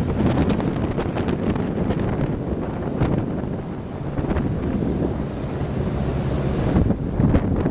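Wind buffeting the microphone on a moving boat: a steady low rumble with irregular gusty thumps, and water noise mixed in.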